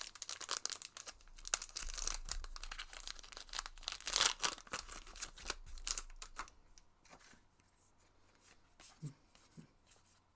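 Foil trading-card booster pack wrapper being torn open and crinkled, loudest about four seconds in; after about six seconds it dies down to a few faint light ticks.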